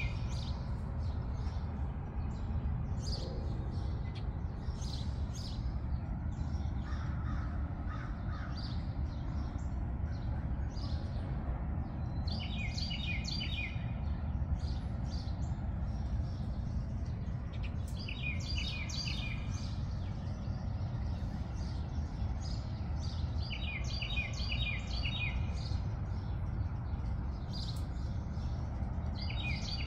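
Wild songbirds chirping and singing, one bird repeating the same short trilled phrase about every six seconds, with a few lower, harsher calls like a crow's cawing. A steady low rumble lies underneath.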